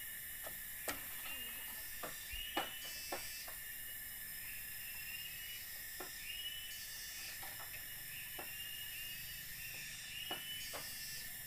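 Night-time forest insect chorus: a steady high hiss with chirping calls that repeat every few seconds. Scattered sharp clicks are heard throughout.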